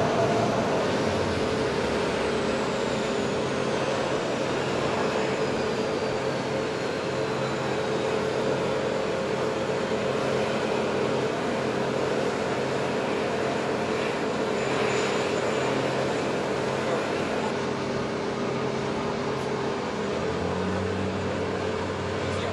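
C-130 Hercules turboprop engines running on the ramp: a steady drone with a held hum, and a high whine that falls slowly over the first several seconds.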